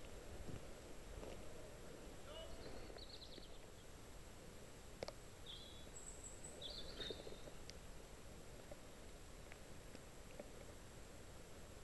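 Quiet outdoor background with a few faint, short, high bird chirps in the middle, and an occasional faint click.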